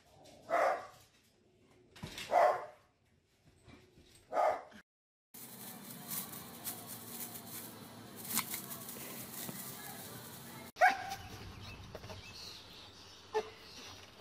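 A dog barks three times, about two seconds apart. After several seconds of steady outdoor background noise, a dog gives one more short, sharp bark.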